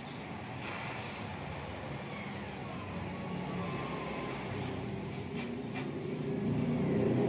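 Welding on a car's exhaust pipe: a steady noisy buzz with a few short crackles, growing louder near the end.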